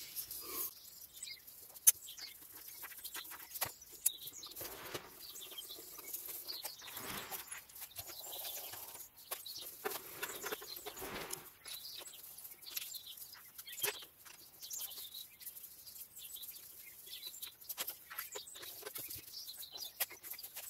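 Scattered light metallic clicks and taps as the bolts of a ZF 8HP70 automatic transmission sump are started by hand with a socket on an extension, with a sharp click about two seconds in.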